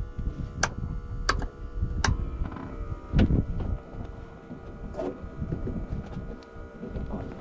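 Wind buffeting the microphone in an uneven low rumble that swells loudly about three seconds in, with three sharp clicks in the first two seconds, about two-thirds of a second apart, weaker clicks later, and a faint steady electrical hum.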